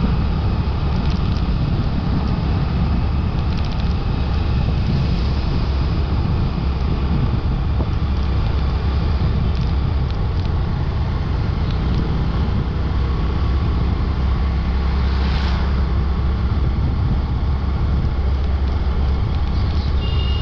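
Wind buffeting the microphone over the steady running of a motorbike riding along a road. There is a brief hiss about three-quarters of the way through and a short high tone near the end.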